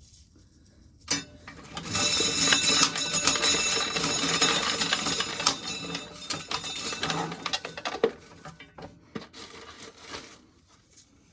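Dry shelled corn kernels rattling and clinking against a hard container, a dense clatter of many small clicks that starts about a second in, is heaviest for a few seconds and then thins out to scattered clicks.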